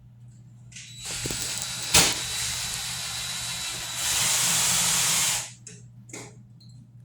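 A loud, even hissing rush that starts about a second in, with a sharp crack near its start. It gets louder for its last second and a half, then cuts off.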